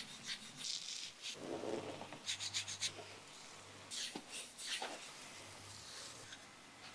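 Faint rustling, rubbing and scraping handling noises with a few light clicks, over a low steady hum.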